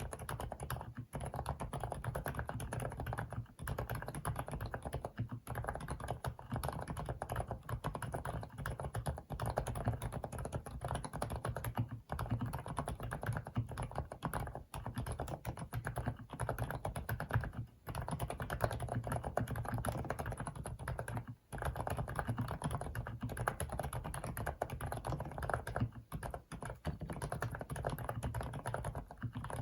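Fast, continuous typing on an FL-ESPORTS CMK75 mechanical keyboard fitted with Kailh silent cream linear switches: dense, soft, muffled keystrokes with no sharp click, the dampened sound of silent switches.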